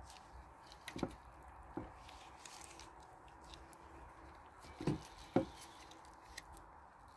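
Raw chicken leg pieces set down in an oiled glass baking dish: soft wet thuds, one about a second in, another just after, and a louder pair close together about five seconds in.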